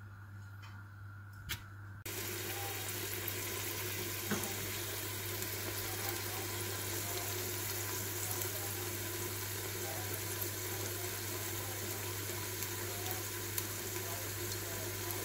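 Sliced onions frying in hot oil, a steady sizzle that starts about two seconds in after a quieter moment with a single click.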